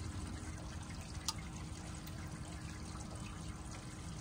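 Water trickling steadily, with a low rumble underneath and one sharp click just over a second in.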